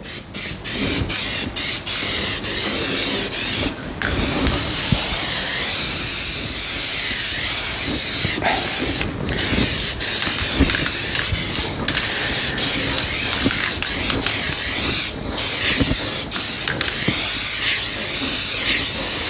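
Masking tape being peeled off freshly painted car bodywork along the windshield edge: a steady, ratcheting rip with a few short breaks.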